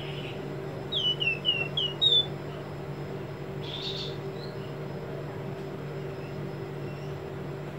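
Caged flamboyan songbird calling: a quick run of about six short, sharp, downward-slurred notes about a second in, then a single short burst about four seconds in. A steady low hum runs underneath.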